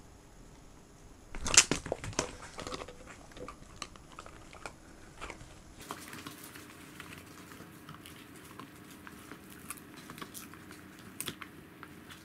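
Pembroke Welsh corgis biting and chewing hard bone-shaped dog treats: a loud cluster of sharp cracks and crunches about a second and a half in, then scattered crunching and gnawing clicks.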